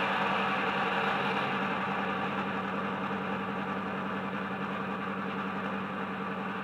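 Bachmann Class 55 Deltic model's DCC sound decoder playing the idle of its Napier Deltic diesel engines through a fitted EM2 speaker, a steady drone that cuts off sharply above the higher notes.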